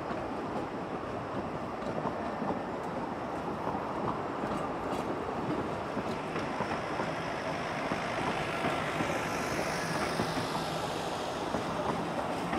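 Narrow-gauge steam train running, its carriages rolling along the track with a steady, dense rumble.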